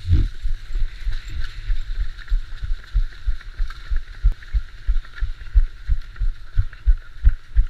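Running footsteps jolting a head-mounted action camera: an even rhythm of low thuds, about three a second, over a steady hiss.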